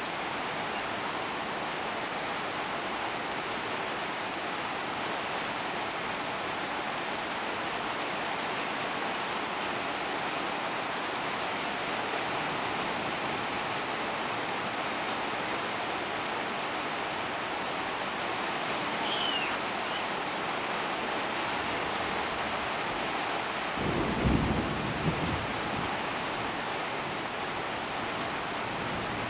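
Heavy rain pouring steadily onto broad tropical leaves, an even hiss of downpour. Near the end there is a brief low rumble.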